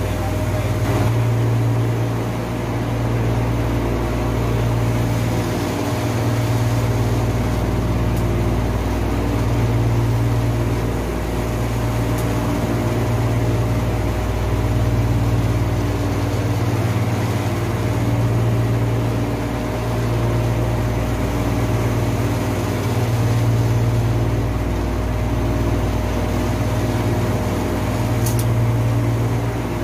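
Steady mechanical hum of running air-conditioning plant machinery, with a low hum swelling and fading about every two seconds and a steady higher tone above it. A brief hiss comes near the end.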